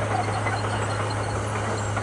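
Komatsu bulldozer's diesel engine running steadily: a constant low hum under a dense, grainy noise with no breaks.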